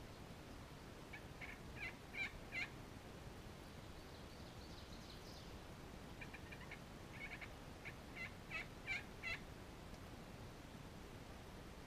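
Wild turkey yelping: a short series of evenly spaced yelps about a second in, then a longer series from about six seconds in that grows louder toward its end.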